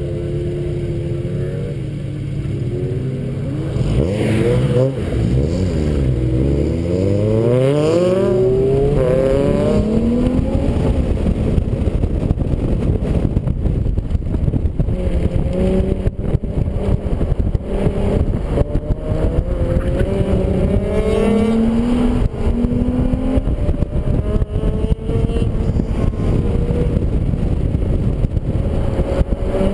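Infiniti G35 coupe's 3.5-litre V6 pulling away at low revs, then rising in pitch as it accelerates and steps up through its automatic gearbox on the warm-up lap.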